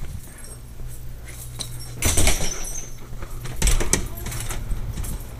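Keys jangling and footsteps as someone walks through a doorway, with two louder knocks, about two seconds in and again near four seconds.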